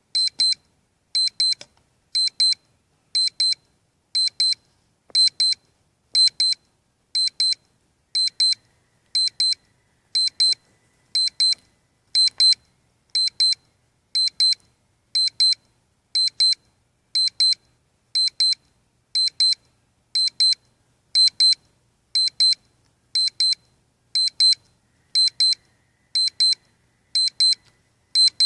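Cheap projection alarm clock's speaker beeping its alarm: a high electronic beep in quick clusters repeating about once a second, steady in level. It stops near the end.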